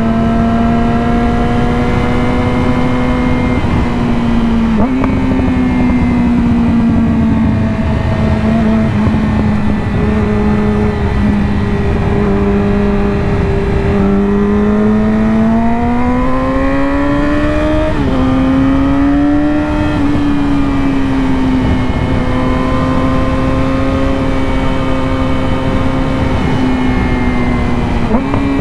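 2020 Yamaha R6's inline-four engine, fitted with an M4 slip-on exhaust and its catalytic converter removed, running under way at fairly steady revs with slow rises and falls in pitch. Past the middle it climbs for a few seconds, then drops sharply at a gear change. There are brief dips like quick shifts about five seconds in and near the end.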